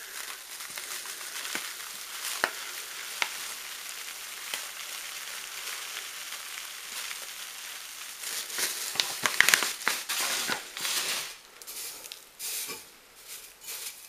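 Perlite granules pouring from a bag into the space around a crucible: a steady high hiss with scattered small clicks of grains landing. The pour gets louder and more uneven about eight seconds in, then thins out near the end.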